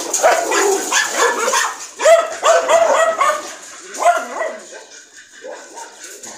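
Dogs barking and yipping: several runs of short, quick barks with brief pauses between.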